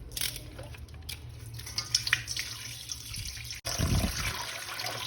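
Water running from a tap into a sink and splashing, with small clicks and knocks as a plastic toy figure is washed under it.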